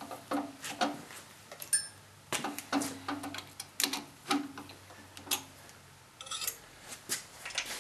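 Drill press chuck being tightened around a 5/16-inch twist drill bit: a string of light, irregularly spaced clicks and ticks.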